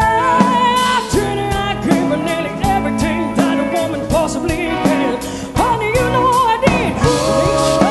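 Live rock band playing electric guitars, bass and drums, with a woman singing lead in a wavering vibrato; near the end she holds a long note.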